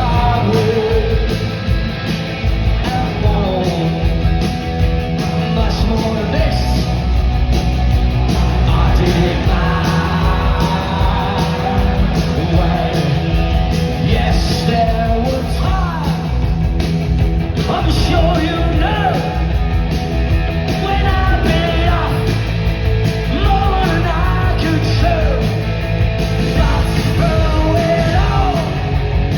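Live punk rock band playing at full volume: electric guitars, bass and drums, with a singer shouting and singing over them.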